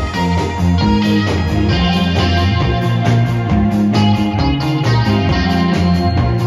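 Live rock band playing: electric guitars through amplifiers over drums and keyboard, with cymbals keeping a steady beat.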